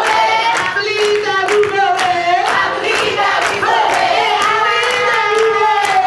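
A group of people singing a chant together, clapping their hands on a steady beat about twice a second.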